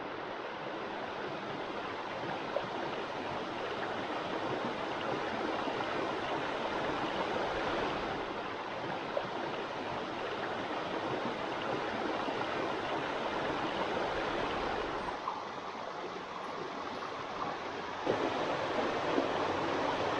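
A shallow rocky woodland brook babbling and rushing over stones in a steady stream of water noise. The rush dips a little past the middle and grows louder again near the end.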